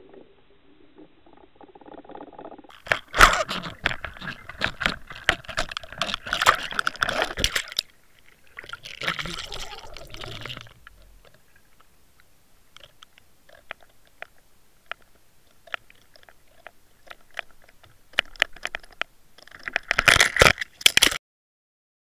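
Underwater crackling, clicking and knocking picked up by a camera on the fishing line as a hooked pike jostles the umbrella rig against it. It comes in dense bursts, thins to scattered ticks, then a last burst near the end that cuts off suddenly.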